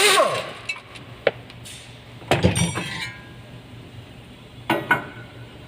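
Metal tools and brake parts clinking and clanking as they are handled, in a few separate knocks, one near the middle ringing briefly.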